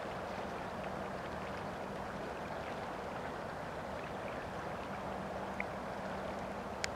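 Steady outdoor rushing ambience of wind and rippling water, with a faint low hum that fades in and out. Near the end there are two brief high sounds: a short chirp, then a sharp click.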